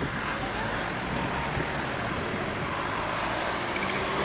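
Steady road traffic noise: a continuous wash of passing cars and buses.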